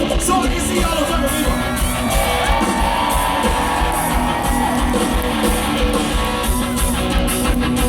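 Live rock band playing loud: electric guitars over a steady drum beat, with long held notes that bend in pitch.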